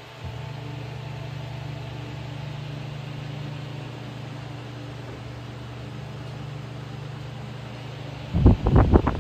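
Steady electric hum of a ventilation fan inside a submarine compartment, a low drone with a few even tones. Near the end, loud irregular low thumps cover it.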